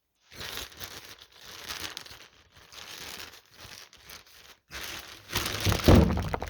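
Plastic packaging crinkling and rustling as it is handled, uneven throughout, with louder handling noise near the end.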